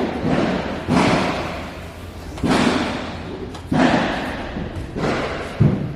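Repeated heavy thuds, about one a second, each ringing out and dying away slowly in a large echoing hall.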